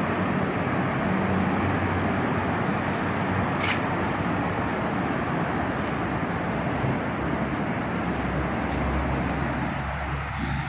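Steady noise of road traffic, with a deeper low rumble swelling near the end.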